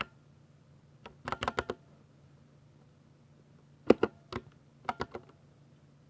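Typing on a 60% mechanical keyboard with Ducky silver (linear speed) switches: a quick run of about six keystrokes a little over a second in, a pause, then another run of clacking keystrokes around four to five seconds in.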